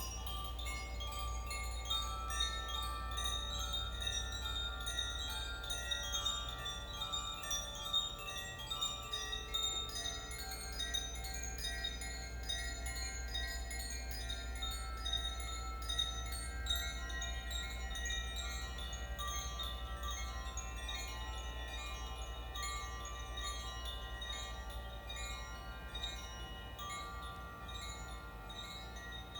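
Koshi chimes being swayed by hand: a dense, unbroken shimmer of small strikes as the clapper hits the tuned metal rods inside the bamboo tubes, with many overlapping ringing tones that sustain into each other. It eases a little near the end, over a steady low hum.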